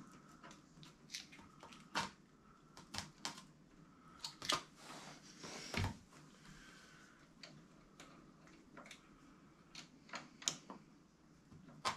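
Irregular light clicks and taps of metal parts being handled as a Bafang mid-drive motor and its mounting bolts are fitted at a fat bike's bottom bracket, with a brief rustle about five seconds in.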